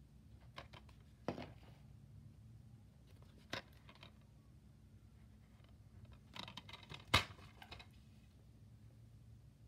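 Handling noise from a plastic DVD case as it is turned over and taken away: a few scattered clicks and rustles, the loudest a sharp click about seven seconds in, over a faint low hum.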